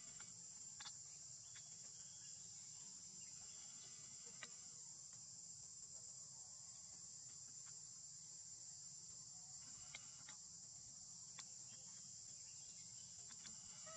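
Faint, steady high-pitched chorus of insects, with a few faint clicks scattered through it.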